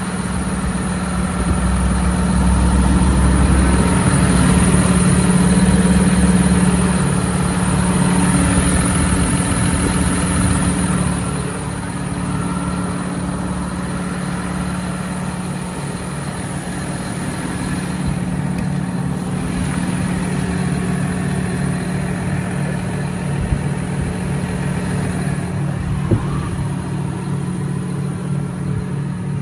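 John Deere 6145R tractor's six-cylinder diesel engine idling steadily, louder for about the first ten seconds and then a little quieter and even. Two light clicks come in the second half.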